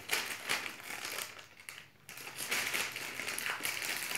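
Shiny plastic surprise-pack bag crinkling as hands handle it: a run of rustles with a short pause about two seconds in.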